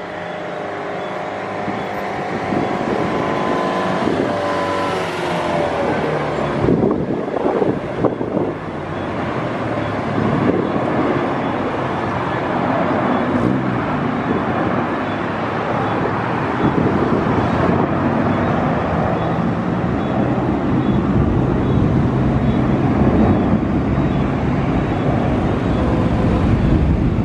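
Jet engines of a JetBlue airliner spooling up and pulling it down the runway on its takeoff roll. Whining tones rise a little in pitch over the first several seconds, then a broad jet roar builds and gets louder towards the end.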